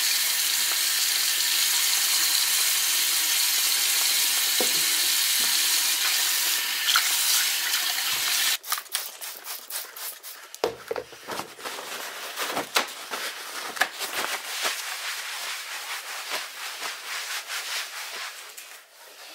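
Bathroom tap running steadily into a ceramic sink while a child's feet are rinsed under it; it stops suddenly after about eight seconds. Then a cloth or paper towel is rubbed over the floor to wipe up a puddle, giving irregular rustling, rubbing strokes.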